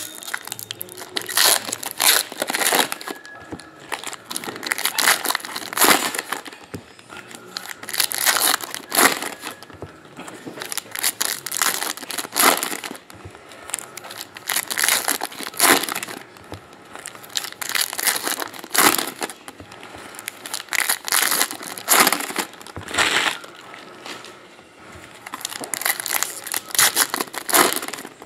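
Foil trading-card packs being torn open and crinkled by hand: repeated bursts of crackly rustling, a second or two apart.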